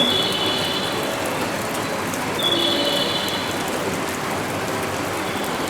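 Steady hiss of rain at a railway platform, with two short high-pitched tones about two and a half seconds apart.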